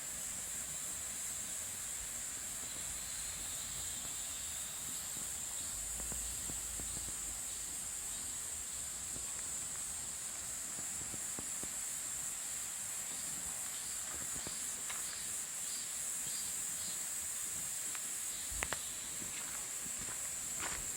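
A steady, high-pitched drone of insects, holding one level throughout. A couple of footsteps sound near the end.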